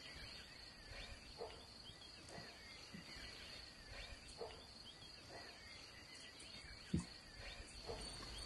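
Faint field ambience: crickets trilling steadily, with short animal chirps about once a second and a single soft knock about seven seconds in.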